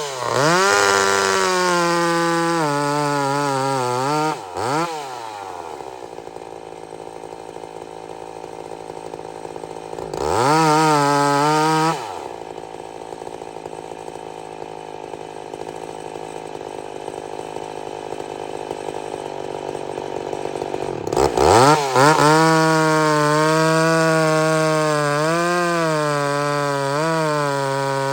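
Vintage two-stroke chainsaw, about fifty years old, revved high with its pitch sagging and wavering as if under load in the wood, dropping back to a steady idle twice. There is a short blip of throttle between the idles and a longer high-revving stretch near the end.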